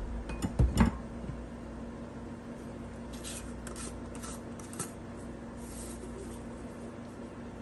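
Kitchen food-preparation handling sounds. A few sharp clicks and knocks come in the first second, then scattered soft rustles and scrapes follow, over a faint steady hum.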